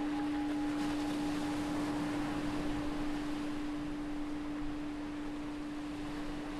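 A meditation bell's long ringing tone holds steady, its higher overtone fading out about a second in, over the even wash of ocean waves on a beach.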